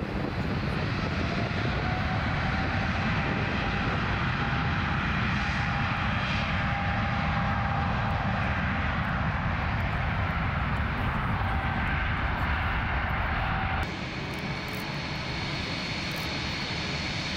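Jet engines of a Nippon Cargo Airlines Boeing 747 freighter running loudly at high power on the runway: a steady rumble with a faint whine. About 14 s in, the sound cuts to a quieter, more distant rumble with a thin high whine as the aircraft lifts off.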